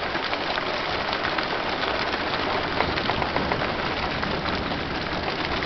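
Heavy rain pouring down steadily, a dense hiss of many small drop hits.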